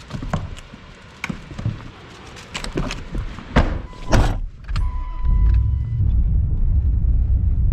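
Pickup truck door clunks and knocks as someone gets in, and a short electronic chime sounds about five seconds in. From then on the pickup's engine runs steadily.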